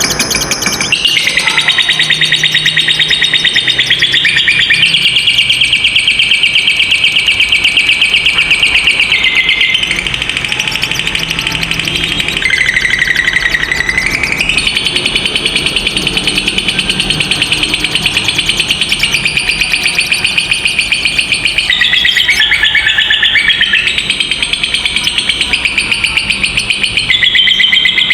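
Lovebirds giving a long 'ngekek': a continuous, very rapid, high-pitched chattering trill that dips lower in pitch a couple of times.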